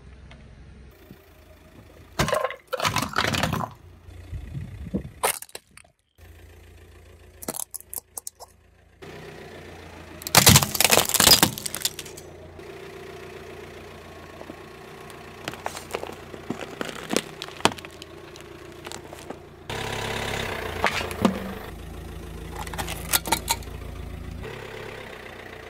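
A car tyre rolling over and crushing objects in a run of short clips, with the car's engine idling underneath. It starts with a liquid-filled balloon bursting a couple of seconds in. Hard plastic casing with a circuit board then cracks and splinters loudly about ten seconds in, and clear plastic safety glasses crack and crunch near the end.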